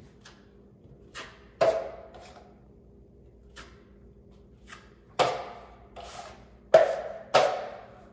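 Metal drywall knife scraping a drywall corner in short strokes, about nine in all. Each stroke starts sharply and tails off, and the strongest come close together between about five and seven and a half seconds in.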